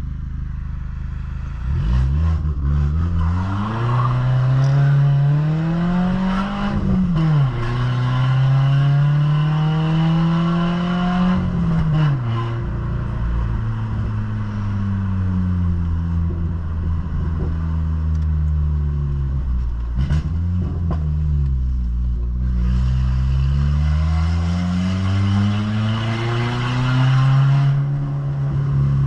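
Ford New Fiesta engine with a modified exhaust (a diffuser fitted ahead of all the mufflers) rumbling under acceleration: the engine pitch climbs and drops sharply at two gear changes, falls as the car slows, then climbs again.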